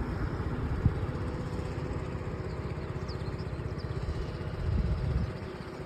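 Car engine idling with an even low throb, swelling briefly about five seconds in.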